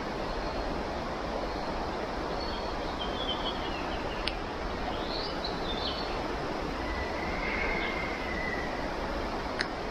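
Steady rushing of a shallow stream, with birds calling over it: short chirps a few seconds in and again around five seconds, then one long whistle a little after seven seconds. Two sharp clicks, about four seconds in and near the end.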